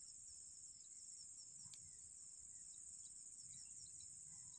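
Faint, steady high-pitched chorus of insects such as crickets, with one sharp click about 1.7 seconds in.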